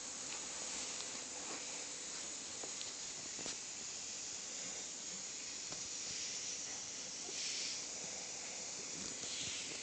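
Steady faint hiss of background noise, with a few soft clicks and two brief louder rushes of noise near the end.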